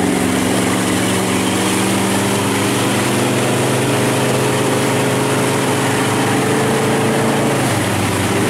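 Motorboat engine running steadily while towing, under a steady rush of wind and churning water. The engine note shifts slightly about seven and a half seconds in.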